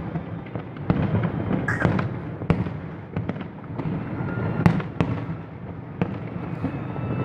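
Fireworks display heard from a distance: a continuous rumble of bursts broken by many sharp bangs, the loudest nearly five seconds in.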